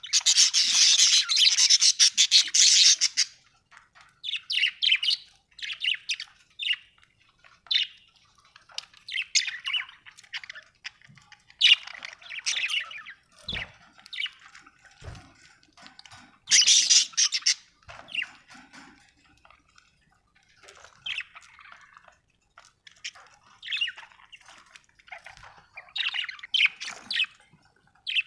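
Budgerigar chirping and chattering in short, rapid bursts of high warbling calls with brief pauses between phrases. The loudest bursts come in the first three seconds and again around the middle.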